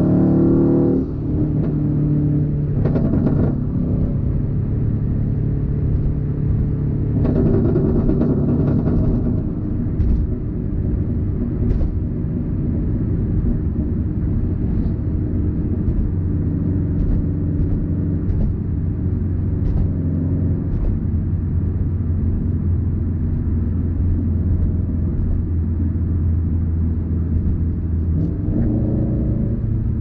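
2004 Subaru WRX STi's turbocharged 2.5-litre flat-four with a Tomei exhaust, heard from inside the cabin while cruising. The engine note rises and drops with throttle changes in the first ten seconds, then settles into a steady low drone, with a few short sharp pops along the way.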